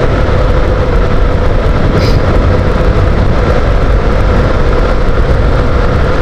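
Motorcycle riding at a steady speed through a road tunnel: a loud, steady rush of wind and road rumble with a constant engine hum, with traffic noise echoing off the tunnel walls.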